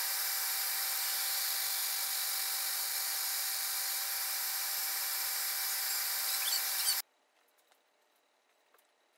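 Large disc sander running with a steady whir and hiss as a segmented wooden ring is pressed against the spinning abrasive disc to flatten its face. The sound cuts off abruptly about seven seconds in, leaving near silence with a few faint handling clicks.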